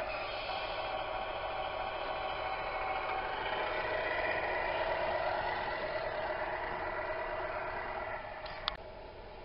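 1/14-scale Tamiya MAN radio-controlled truck driving slowly past, with a steady running sound that grows louder toward the middle and drops away at about eight seconds. A single sharp click follows just before the end.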